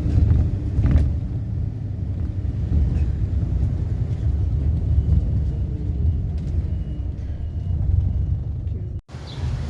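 Steady low rumble of a moving vehicle, with a brief sudden dropout about nine seconds in.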